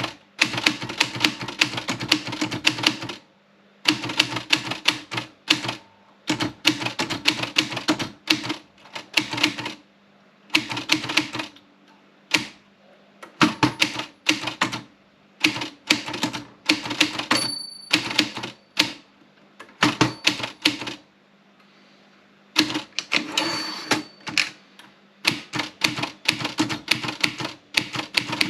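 Olympia Splendid 33 manual portable typewriter being typed on: fast runs of key strikes, each lasting one to three seconds, with short pauses between them.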